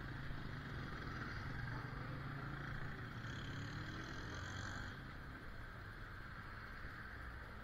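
Street traffic: vehicle engines running in a low, steady rumble, with a faint higher hiss for a couple of seconds midway.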